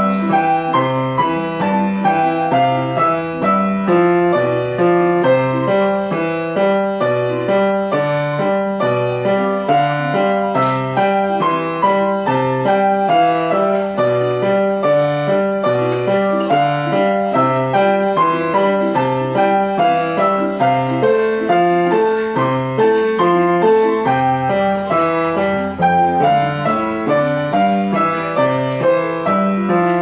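Grand piano played solo: a flowing piece of steady, evenly spaced running notes over a repeating low bass figure in the left hand.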